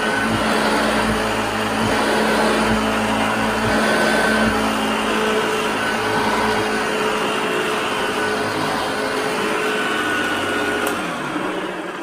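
Hoover Junior U1012 upright vacuum cleaner running steadily as it is pushed over a rug, a motor drone with a steady higher whine. Near the end the motor winds down, its pitch falling.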